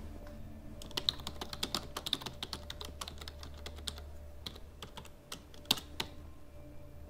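Typing on an HP computer keyboard: a run of irregular key clicks that starts about a second in and stops about six seconds in, over a low steady hum.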